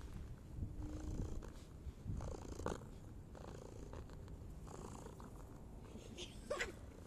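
Long-haired ginger cat purring steadily, right up against the microphone. A couple of short, louder sounds stand out, one about two and a half seconds in and one near the end.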